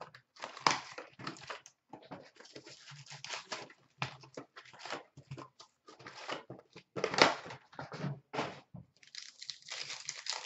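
Cardboard hobby box of hockey trading cards being opened by hand: flaps scraped and pulled, and the foil card packs rustling and crackling as they are slid out and stacked in a run of irregular bursts. There is a longer, steadier rustle near the end.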